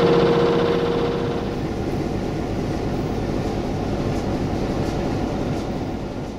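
Sulzer diesel engine of a CFR 060-DA locomotive running with a steady pulsing hum; about a second and a half in the hum drops away, leaving a broad rumble that fades out at the end.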